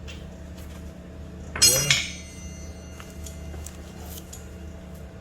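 Metal tools or parts clinking against metal twice in quick succession about a second and a half in, with a brief ringing after; a few light handling clicks and a steady low hum around them.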